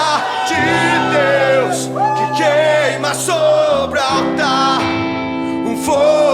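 Live worship rock band playing: a voice singing long held, bending notes over electric guitars, bass and drums, with a few sharp cymbal or drum hits.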